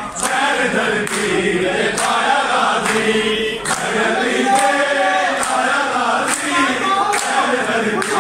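A crowd of men chanting together in unison, with rhythmic hand-clapping about twice a second.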